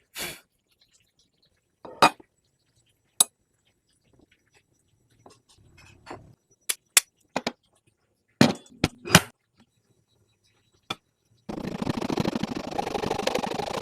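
Scattered sharp knocks and clicks of hand tools on wood, about a dozen and unevenly spaced. Near the end a continuous, busy, dense sound takes over.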